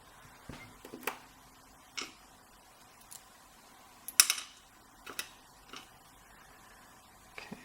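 Scattered small metallic clicks and taps, about eight, as the pins, springs and tools of a Schlage Primus lock cylinder are handled during disassembly. The loudest tap comes about four seconds in.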